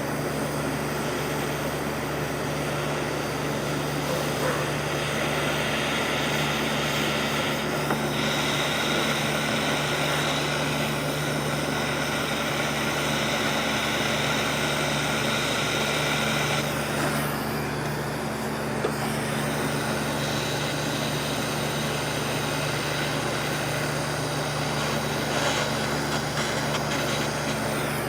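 Heat gun blowing steadily over ring terminals on the wiring, over a constant low hum, with its hiss strongest from about five to seventeen seconds in.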